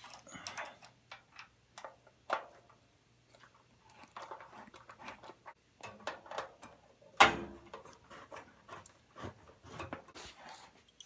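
Small hand tools clicking and clinking on the metal screws and fittings of a gas water heater's burner assembly as it is taken apart, with irregular light taps and rustling and one sharp knock about seven seconds in.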